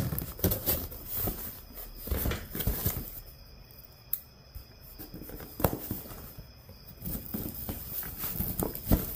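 Hands working a taped box open: scattered rustling, scraping and tearing, with a quieter stretch in the middle and a couple of sharper knocks.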